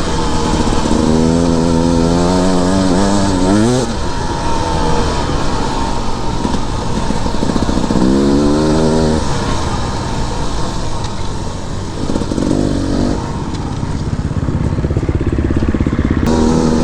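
2021 Beta 300RR two-stroke dirt bike engine being ridden, its revs rising and falling in about four pulls and lugging low between them.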